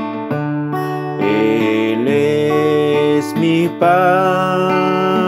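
Acoustic guitar playing strummed chords that change every half second or so, with a man's voice coming in about a second in and holding long, wavering sung notes.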